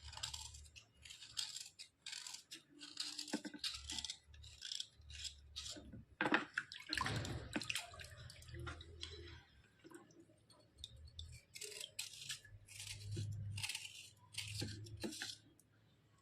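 Repeated short scraping strokes on thick white slate pencils, a rasping scratch a few times a second. There are short pauses and soft knocks from handling in between, and it stops shortly before the end.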